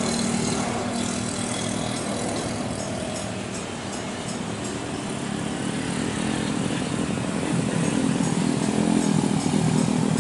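Airliner engines at take-off thrust: a steady, buzzing rumble that grows louder toward the end.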